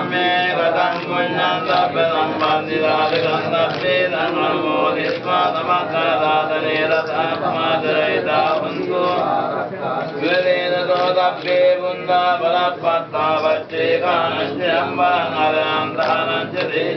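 A voice chanting Buddhist Pali verses (pirith) in one unbroken, sung recitation.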